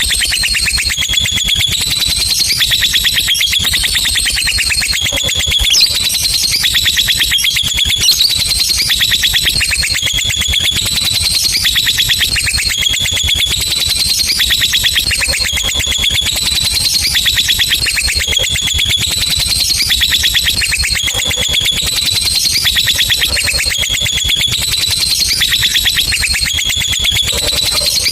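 Lovebird giving a long, unbroken ngekek: a rapid, high-pitched chattering trill that steps up and down in pitch.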